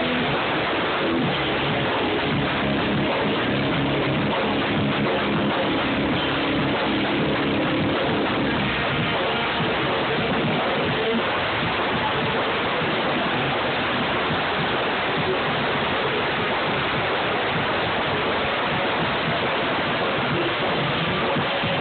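A band playing a song loud in the room, with electric guitar, coming through as a dense, steady wall of noisy sound.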